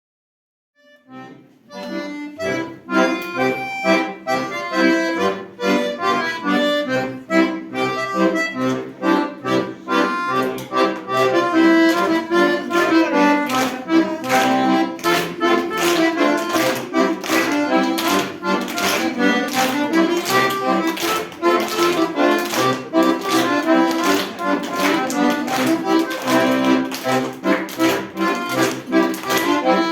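Instrumental music starts about a second in after silence: a lively piece of many quick notes, played without singing.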